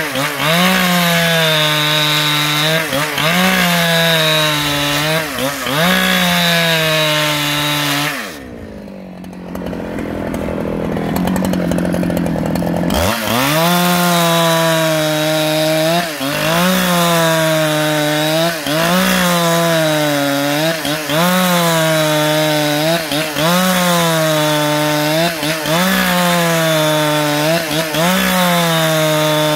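Husqvarna 395XP two-stroke chainsaw under full load, ripping a long timber lengthwise along the grain. The engine note sags and recovers every second or so as the bar is fed into the cut. About eight seconds in it drops to a quieter, duller note for some four seconds, then revs back up and carries on cutting.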